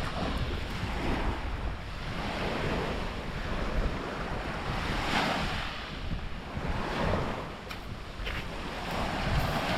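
Sea waves washing onto the beach, the surf hiss swelling and fading several times, with wind rumbling on the microphone.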